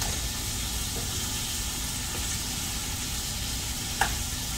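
Hamburger patties sizzling steadily in a hot skillet as they brown, with one short click near the end.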